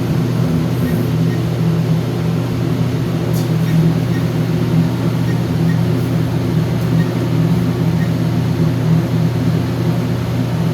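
Steady low mechanical hum, even and unbroken.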